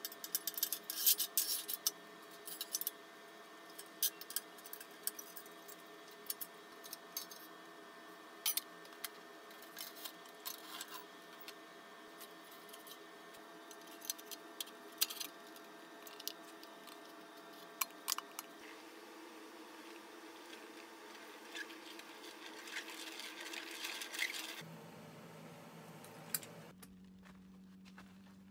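Irregular light metallic clicks, clinks and rattles as the steel parts of a handmade mini-oven rocket stove are handled: a tube slid into place, a hinged door worked. A steady faint hum runs underneath and drops away near the end.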